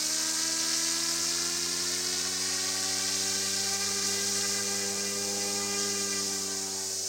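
Yuxiang F09 Black Hawk RC helicopter's electric motor and rotors whining, the pitch rising over the first few seconds and then holding steady, over a steady high hiss.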